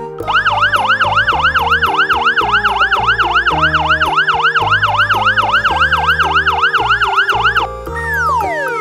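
Fire engine siren wailing rapidly up and down, about three times a second, then cutting off; a single tone glides down near the end.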